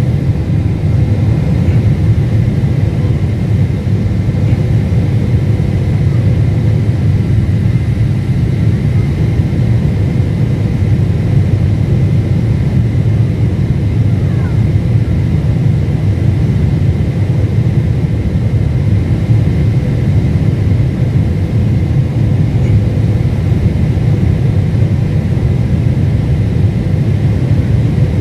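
Steady cabin noise of a Boeing 747-8i descending: a low rumble from its GEnx engines and the airflow past the fuselage, heard from a window seat over the wing, with faint steady whining tones above it.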